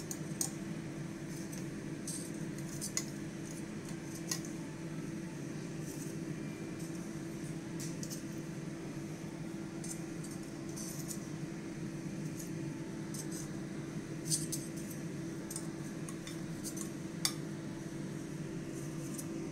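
Metal tongs clinking and scraping against a baking dish as baked bread rolls are lifted off it, with several sharp clinks spread out over a steady low hum.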